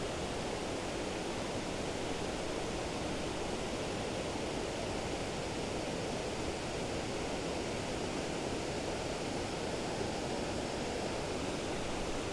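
Fast, turbulent river water rushing below a weir: a steady, even rushing noise with no breaks.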